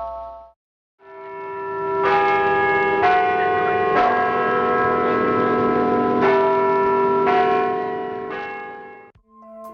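Church bells ringing, several bells struck in turn about once a second, each leaving long overlapping ringing tones. The ringing fades in after a brief silence and fades out near the end.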